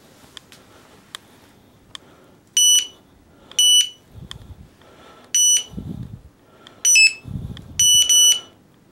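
Electronic carp bite alarm giving a run of short, high-pitched beeps at irregular intervals, starting a couple of seconds in and coming in quick pairs near the end, as a fish pulls line: a bite. Low muffled knocks sound between the beeps.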